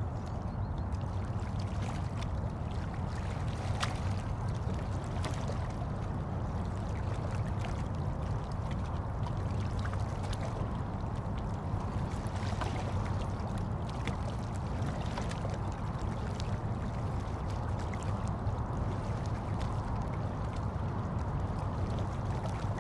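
Steady running water, a constant low rush with faint scattered drips and small splashes.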